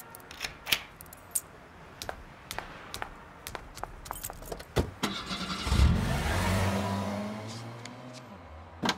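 Scattered light clicks, then about six seconds in a car engine starts with a loud burst and runs as the car drives off, its hum fading away. A sharp click near the end.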